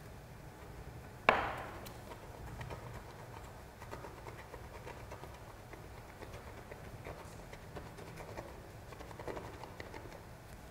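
Shaving brush swirling and whipping lather in a wooden shaving bowl: faint, irregular soft swishing with small clicks. A single sharp knock about a second in is the loudest sound.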